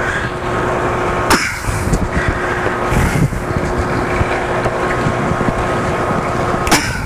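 Flexible tubing rubbing and scraping as it is forced by hand onto a small water pump's outlet, with a sharper scrape about a second in and another near the end. Under it runs a steady machinery hum and rush.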